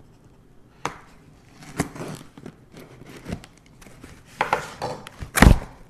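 A dull knife slitting and scraping through clear packing tape on a cardboard box, with the tape crinkling and tearing in short, irregular strokes. A loud thump near the end.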